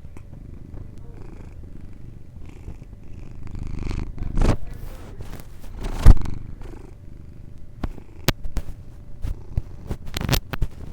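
A house cat purring steadily, picked up close on a tiny clip-on microphone, with a couple of loud bumps about four and a half and six seconds in and a few smaller clicks near the end.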